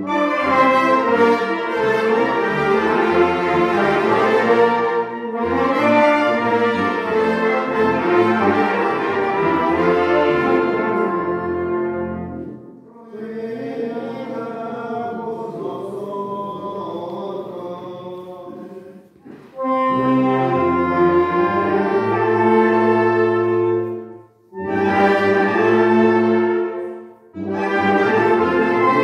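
Brass band with sousaphones and trumpets playing a piece in phrases with short pauses between them, dropping to a softer passage in the middle.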